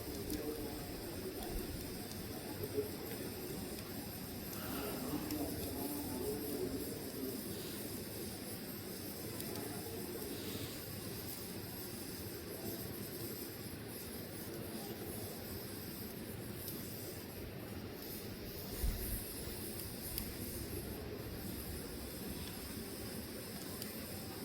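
Burning logs hissing and crackling steadily, with a few sharp pops, the loudest about 19 seconds in.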